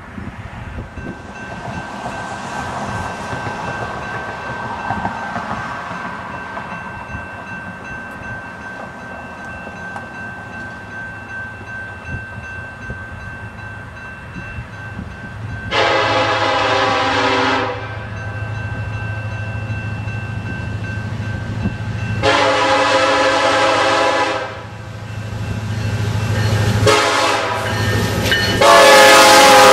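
BNSF EMD SD70ACe diesel locomotive leading a coal train sounds its multi-note horn for a grade crossing in the standard long, long, short, long pattern, the first blast about halfway through and the last beginning near the end. Under the horn the low rumble of the approaching locomotive grows louder; before it arrives there is mostly wind noise.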